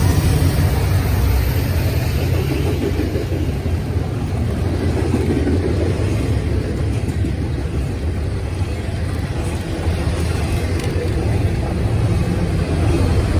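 Freight train passing close at speed: the trailing locomotives go by, then double-stack container cars, giving a steady, loud, low rumble of steel wheels on rail.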